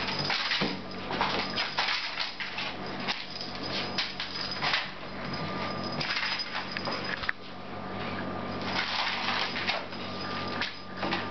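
Scuffling, rustling and irregular light knocks from a cat playing at a carpeted cat tree, with a steady low hum underneath.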